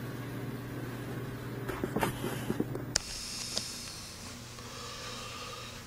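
Steady low electrical hum and hiss of the recording, broken by a sharp click about three seconds in, after which the hum stops and only a fainter hiss remains.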